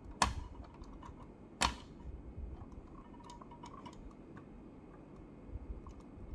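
Two sharp clicks about a second and a half apart, then scattered lighter ticks, as a small metal pick works at the door of a 1/18 scale diecast model car.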